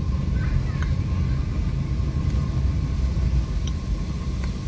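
Car engine and tyre noise heard from inside the moving car's cabin: a steady low rumble.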